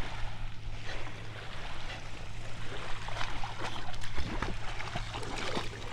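Small waves lapping in shallow lake water, with irregular splashes from about three seconds in as a boxer dog bites at the water.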